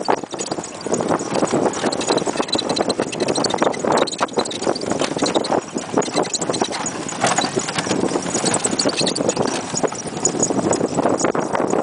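A pony's hooves clip-clopping steadily on a sandy dirt track as it pulls a cidomo, a small horse cart.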